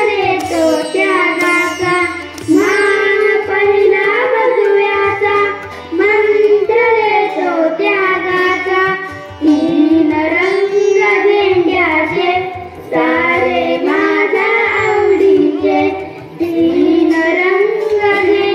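Children singing a patriotic song about the Indian tricolour flag, with instrumental accompaniment underneath.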